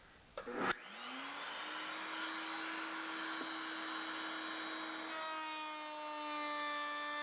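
A short clatter, then an electric power tool's motor starts up: its whine rises in pitch for under a second and then runs at a steady speed. About five seconds in, the tone takes on a stack of sharper overtones.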